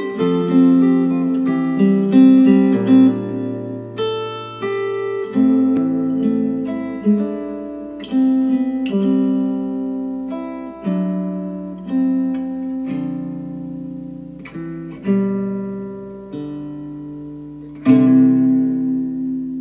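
Acoustic guitar music played back through Wharfedale Diamond 12.2 bookshelf speakers: slow picked notes and strummed chords, each ringing out and dying away, with a last full chord struck near the end.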